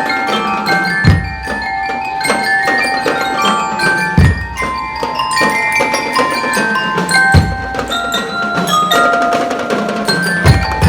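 A drum and lyre marching band playing: bell lyres ring out a melody over snare drum beats, with heavy bass drum strokes about every three seconds.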